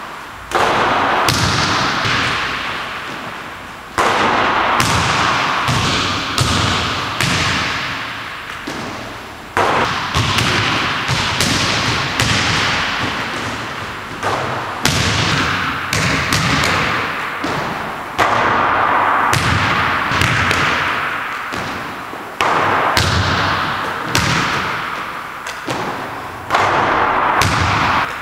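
A basketball thudding on a hardwood gym floor and off the hoop during jump-shot practice, with sharp thumps at irregular intervals of a second or two, often in pairs. Each thump rings on in a long echo in the large, empty gymnasium.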